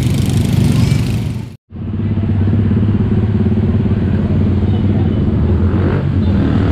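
Road traffic at a level crossing, mostly small motorcycle engines with cars running at a steady low hum. The sound drops out briefly about a second and a half in, then the traffic noise resumes.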